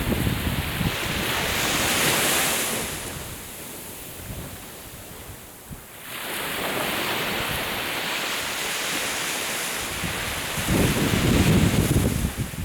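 Sea waves washing onto the shore, a hissing wash that swells, fades and comes back about halfway through, with wind buffeting the microphone in low rumbling gusts at the start and near the end.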